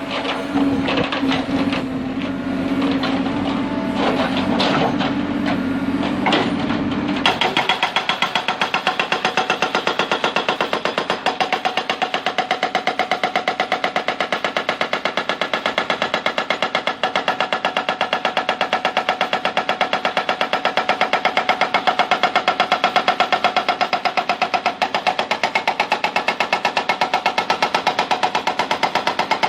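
Backhoe's diesel engine running with a steady hum and scattered knocks. About seven seconds in, its hydraulic breaker hammer starts, a rapid, steady, even hammering that then continues.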